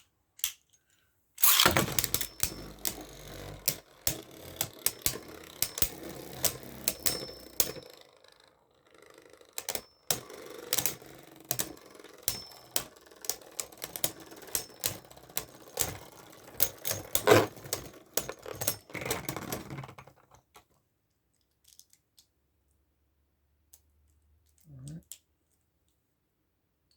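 Beyblade Burst spinning tops whirring and clattering against each other in a plastic stadium: rapid sharp clicks over a steady whir. The sound starts suddenly about a second and a half in, eases briefly around nine seconds, then stops at about twenty seconds as the tops wind down.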